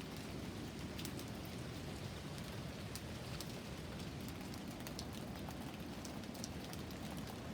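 Steady rain in a wind storm, with scattered drops ticking and a low gusty rumble of wind underneath.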